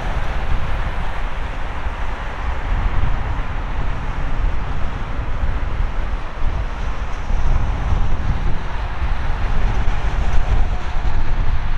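Jet noise from an approaching Airbus A330-300 airliner on final approach, its General Electric CF6-80E1 turbofans at low approach power, a steady rushing drone that grows a little louder near the end. Wind rumbles on the microphone underneath.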